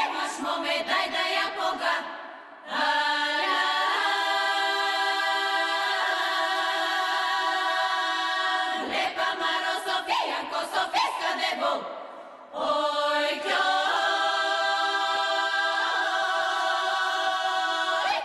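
Bulgarian women's folk choir singing a cappella: a quick ornamented phrase, a short break, then a long held chord of several voices. The same pattern comes round again about nine seconds in.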